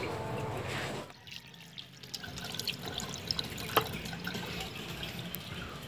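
Water running from a tap into a washbasin as an apple is rinsed under it, with small splashes and drips, starting about two seconds in.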